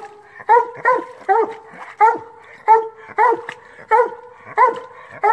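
Black and tan coonhound barking treed at the foot of a tree: a steady run of short, loud chop barks, about two to three a second, each dropping in pitch. The dog is signalling that it has game treed.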